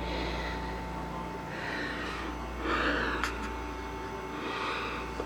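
Steady low hum of the plugged-in Red Bull countertop cooler running, with several soft breaths close to the microphone.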